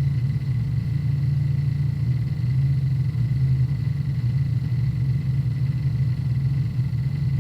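Hard disk drive working through a defragmentation, its heads seeking continuously: a dense, rapidly flickering low rumble with a faint steady high whine over it.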